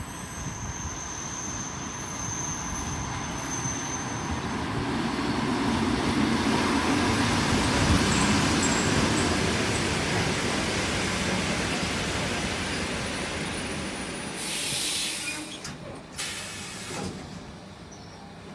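ET2M electric multiple unit pulling into a platform: the rumble of its wheels and running gear swells as the cars pass close, then dies away as it slows to a stop. A thin high squeal runs through the first few seconds, and two short bursts of compressed-air hiss come near the end as it halts.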